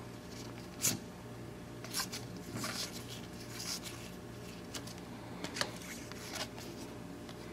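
Stack of baseball trading cards being thumbed through by hand: short papery swishes and snaps as cards slide off one at a time, about one every second or so.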